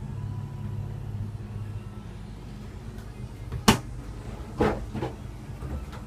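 Dishwasher rack and door being pushed shut: one sharp clunk, then two softer knocks about a second later, over a steady low hum.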